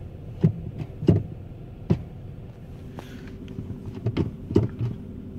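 Jaguar XJ8's 4.2-litre V8 idling just after a cold start, with a steady whining hum: the weird sound it always makes when cold. A few short clicks and knocks sound over it.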